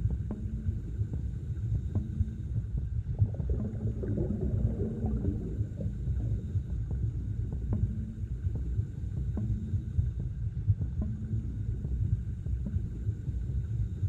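Underwater ambience: a steady low rumble of moving water with scattered faint clicks and ticks.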